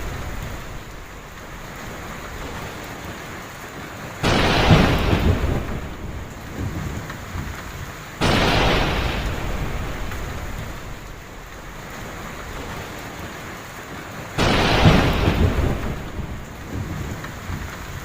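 Heavy rain falling steadily, broken by three thunderclaps that each start suddenly and rumble away over a few seconds.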